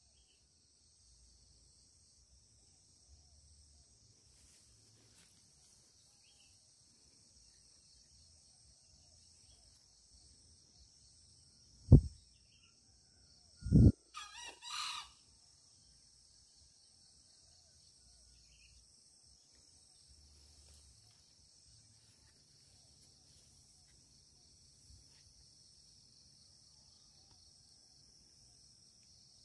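A steady high insect drone in forest undergrowth, broken about 12 and 14 seconds in by two dull thumps. The second thump is followed by a short, broken junglefowl crow.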